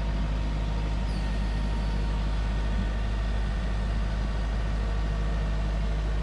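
Truck engine idling steadily, a constant low hum that does not change.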